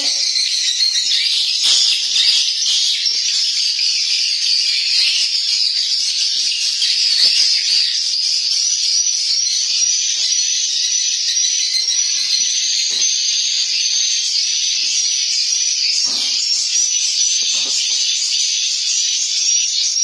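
Edible-nest swiftlet calls: a dense, continuous high twittering of rapid repeated chirps that never lets up, with occasional faint knocks underneath.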